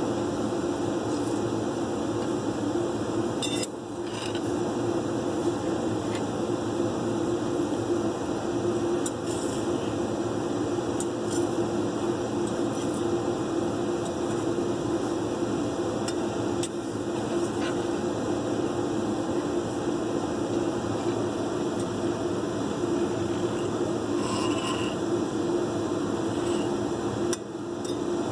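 Flat metal scraper scraping and clinking against the solder pot of a wave soldering machine as dross is skimmed off the molten solder. Short metallic clinks sound at irregular moments over the machine's steady hum.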